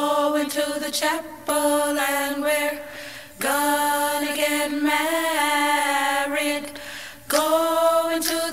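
Unaccompanied singing laid over the pictures as background music: long held notes in phrases of one to four seconds, with short breaks between them.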